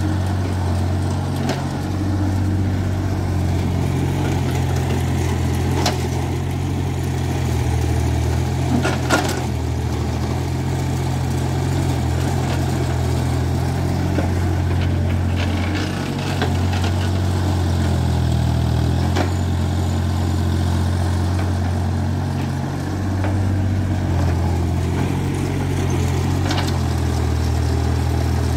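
Heavy earthmoving machine's diesel engine running steadily, its pitch shifting a few times. Several short, sharp knocks break through over it.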